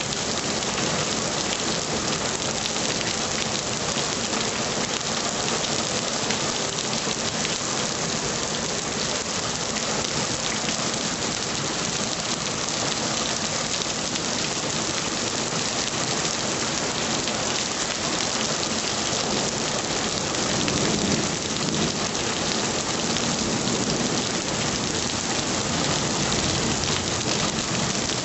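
Heavy rain falling steadily, an even, dense hiss of downpour. A low rumble of thunder swells briefly about two-thirds of the way through.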